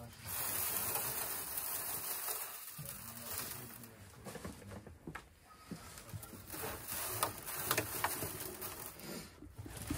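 Hands handling and rubbing a piglet carcass in a plastic bin: scattered rubbing, clicks and light knocks against the plastic, with a steady hiss in the first few seconds.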